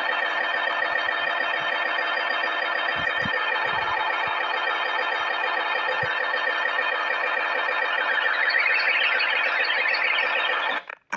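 Loud, steady electronic buzzing drone with a fast flutter, rising in pitch near the end and then cutting off suddenly.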